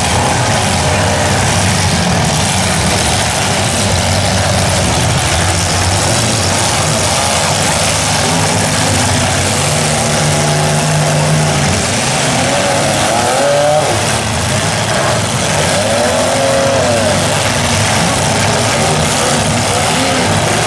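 Several compact demolition derby cars' engines running hard at once, revs rising and falling as they ram each other, in one loud, continuous din.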